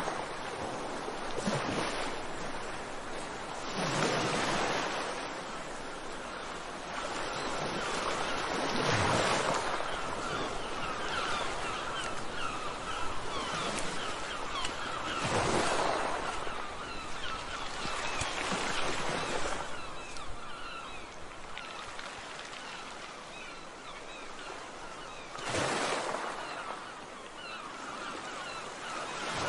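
Ocean waves breaking on a shore: a steady rush of surf that swells into a louder surge every four to six seconds as each wave rolls in.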